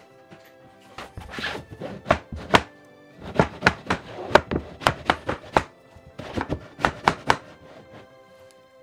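A hammer knocking on wooden flooring boards, about twenty sharp strokes in irregular quick runs, over background music.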